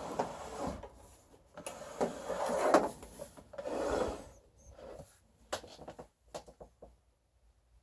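A table fan's air noise fading as the fan spins down, followed by irregular rubbing and scraping sounds and then a quick run of small clicks.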